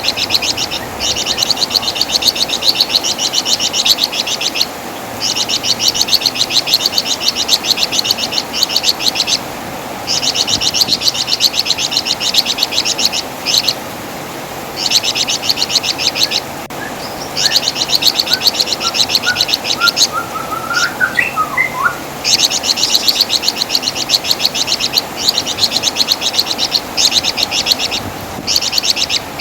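Flamboyan (wergan Jawa) songbird giving its typical shrill chatter: long runs of very fast, high notes, a few seconds each, separated by short pauses. Fainter, lower rising chirps come in about two-thirds of the way through.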